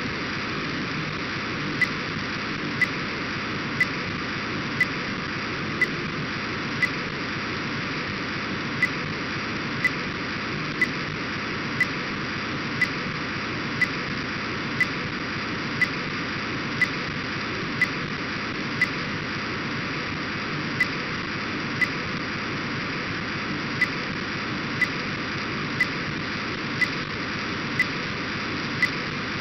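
Orbcomm satellite data signal on about 137 MHz, received by an RTL-SDR and played as audio: a steady hiss, with a short click about once a second.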